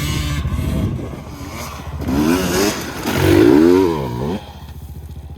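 ATV (quad) engine revving twice, the pitch swinging up and down, the second rev the loudest; it drops back to a low, steady run near the end.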